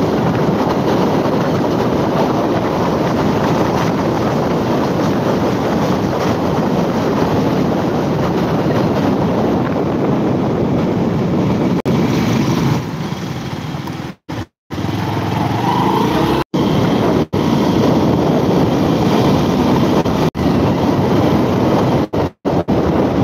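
Wind and road noise rushing over a handlebar-mounted phone on a moving motorcycle, a steady loud rush. In the second half it briefly cuts out to silence several times.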